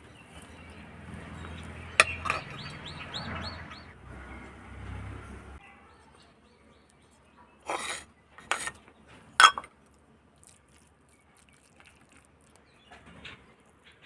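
Metal ladle scooping cooked rice in a clay bowl over a steady low rumble, with a sharp clack about two seconds in and a small bird chirping a quick run of about seven notes. The rumble cuts off abruptly past the middle, and three sharp clinks of utensils on dishes follow.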